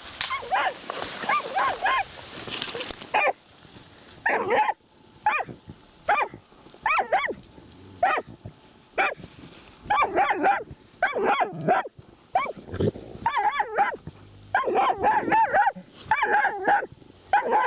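Laika hunting dog barking repeatedly in quick runs with short pauses, baying at a badger in its burrow.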